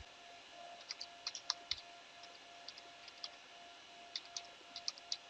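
Faint keystrokes on a computer keyboard in two short runs of typing, over a faint steady hum.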